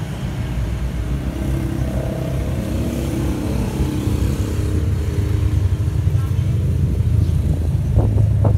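An engine runs steadily with a low hum that grows a little louder. A few sharp knocks come near the end.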